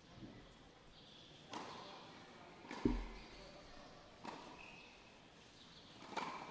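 A tennis ball bouncing on a hard court: four single knocks spaced about a second and a half apart, the loudest, with a dull thud, about three seconds in.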